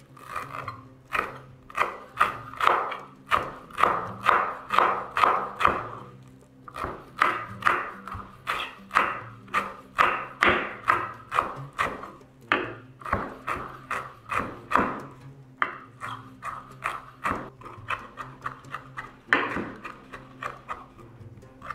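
Chef's knife chopping fresh parsley on a wooden cutting board: quick, regular chops about three a second, with a short pause about six seconds in.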